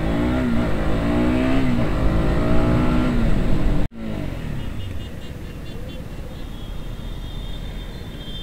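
KTM RC 200's single-cylinder engine accelerating hard, its pitch climbing and dropping back several times. After an abrupt cut about four seconds in, it runs quieter and steadier.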